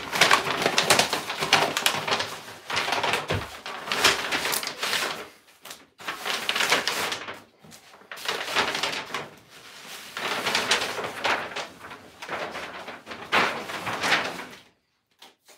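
Large brown paper envelope rustling and crinkling as a snowboard is slid up and out of it. The noise comes in three long stretches with short pauses between and stops shortly before the end.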